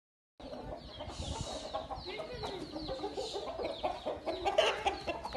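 Chickens clucking in a farmyard: a steady run of short, overlapping clucks and calls with a few sharp clicks, starting about half a second in.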